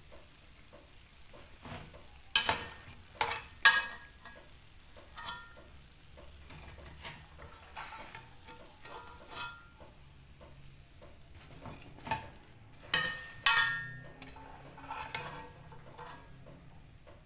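Stainless-steel slotted skimmer clinking against the side of a pan of hot oil as fried dough pieces are scooped out, the sharp ringing clinks coming in two clusters, a few near the start and again near the end. A faint sizzle of frying oil runs underneath.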